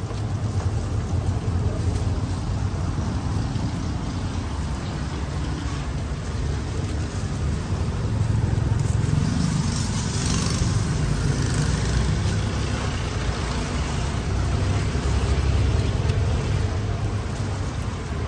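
Steady low rumble of street traffic with indistinct voices in the background.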